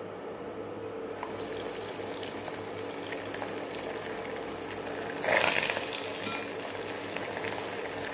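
Battered chicken pakoda pieces dropped into hot oil in a kadai, deep-frying with a steady sizzle. The sizzle starts about a second in and flares louder for a moment after about five seconds as more pieces go in.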